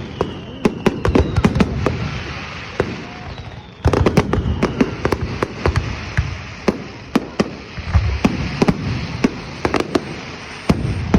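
Fireworks going off in rapid succession, many sharp bangs and crackles over a low rumble, with a louder, denser volley starting about four seconds in.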